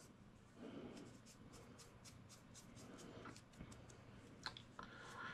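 Near silence with faint rubbing and scattered small ticks from pastel tools being handled, with a couple of slightly sharper clicks near the end.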